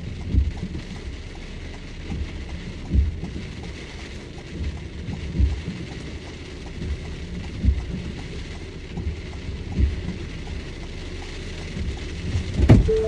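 Steady rain falling, probably on a car, with a dull low thump every two seconds or so and a sharper, louder knock near the end.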